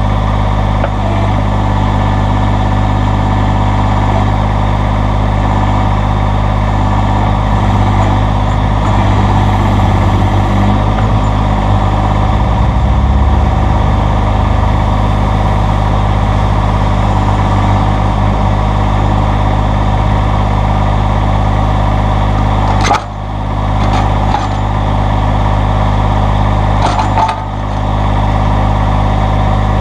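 Massey Ferguson GC1720 subcompact tractor's diesel engine running steadily while the backhoe is worked. Two sharp knocks about four seconds apart come near the end.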